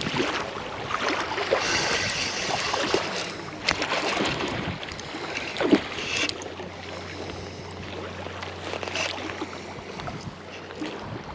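Water splashing and sloshing with a few sharp knocks, as a hooked salmon is played in.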